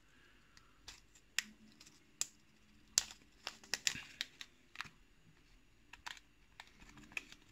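Light, irregular clicks and plastic rustling from hands handling a small zip-lock bag of lock pins and a 3D-printed plastic pinning tray, the loudest click about three seconds in.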